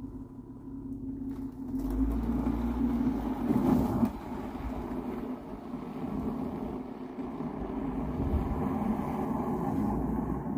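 Minivan engine running as the van backs out of a snowy driveway and pulls away. It swells for a couple of seconds from about two seconds in, drops back about four seconds in, then runs steadily.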